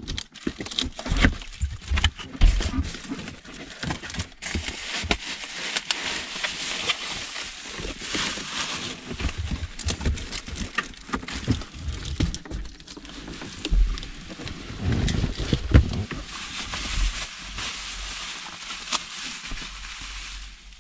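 Hands working on car interior trim: a rapid run of clicks, knocks and low thumps as panels and tools are handled, with rustling throughout.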